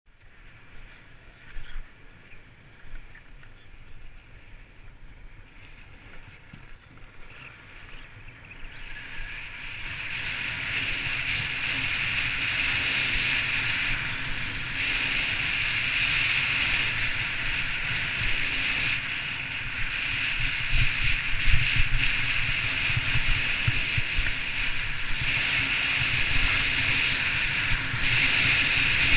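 Fischer RC4 World Cup skis running and carving on groomed snow, with wind rushing over the microphone: fairly quiet with a few knocks at first, then a steady rushing hiss and low rumble from about ten seconds in.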